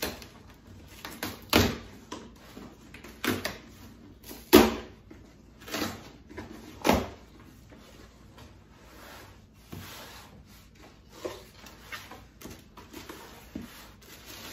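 A cardboard shipping box being opened by hand: about five loud rips and tears of packing tape and cardboard in the first seven seconds, then quieter rustling of the flaps and the plastic wrapping inside.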